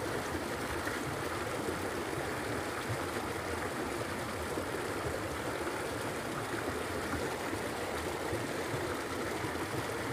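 Stream water flowing, a steady, even rush of running water.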